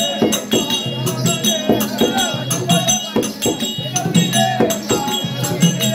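Live folk-drama music: drum strokes in a steady beat over a sustained drone, with jingling ankle bells and a wavering singing voice.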